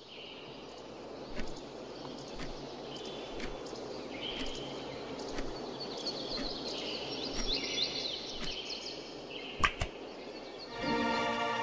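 Countdown timer sound effect: a tick about once a second over a steady hiss with high chirps, ending in a louder double click.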